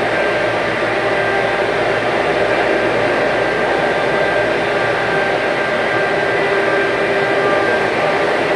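Stick (SMAW) welding arc burning steadily on an overhead weld.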